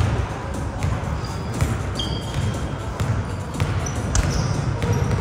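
Basketball game in a gym: the ball bouncing on the court in a string of sharp thuds, with short high squeaks of sneakers on the floor over a steady background of crowd voices.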